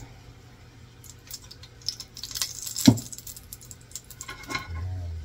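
Kitchen utensils and an oil bottle being handled at the stove: a run of clicks, clinks and rattles, with one louder knock about three seconds in.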